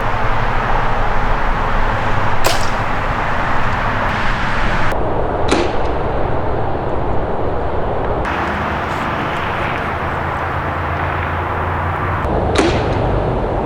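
Bow shots: three sharp cracks from arrows being loosed and striking, a few seconds apart, over a steady rushing background noise.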